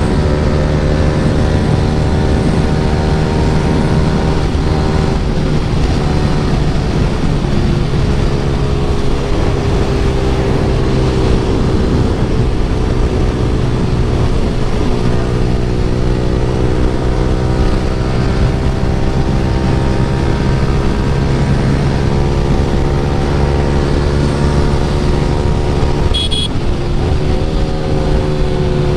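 Yamaha R15 V3's 155 cc single-cylinder engine running through an Akrapovic full-system exhaust while riding, held at fairly steady revs with slow rises and falls in pitch. Near the end there is a short click and the engine pitch dips briefly, then climbs again.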